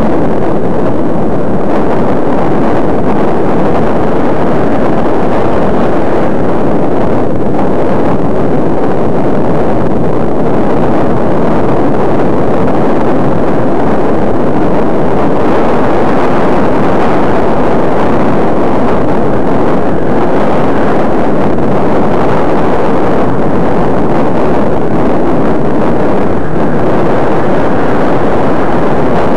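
Loud, steady wind rushing over the microphone of eyeglass-mounted camera glasses while riding a bicycle.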